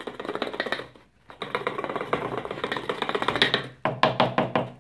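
Rapid tapping and rattling of a plastic funnel in a plastic water bottle, jiggled to shake baking soda down through it. It stops briefly about a second in, and the last run near the end is the loudest.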